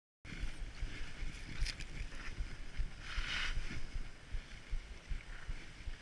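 Skis hissing through powder snow with wind buffeting the helmet camera's microphone, uneven rumbling gusts and a few sharp ticks; a louder hiss of snow a little past halfway.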